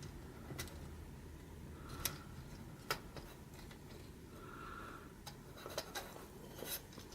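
LEGO Technic plastic pieces being handled and fitted, giving about seven sharp, scattered clicks, the loudest two about two and three seconds in.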